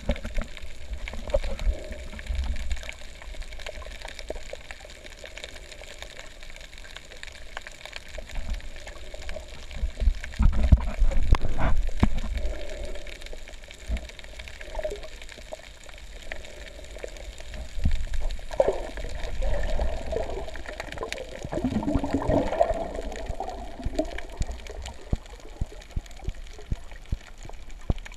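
Muffled underwater sound through the camera: a steady low rumble of water with gurgling swells of a diver's exhaled bubbles, about ten seconds in and again for several seconds around twenty seconds in, over scattered faint clicks.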